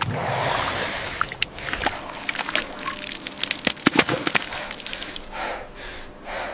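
Thick wet mud sloshing and squelching as hands knead it, then a run of sharp wet slaps and splats as handfuls of mud are thrown onto a wattle wall.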